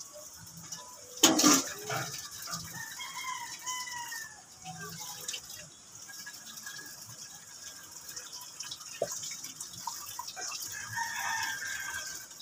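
A rooster crowing, with a second crow near the end, after a short loud noise about a second in.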